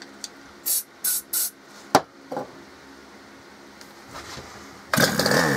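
Three short hisses of easy-start spray aimed at the exposed carburettor intake of a Ryobi RHT2660DA two-stroke hedge trimmer, a sharp click about two seconds in, then near the end about a second of loud whirring as the recoil starter cord is pulled to start the engine.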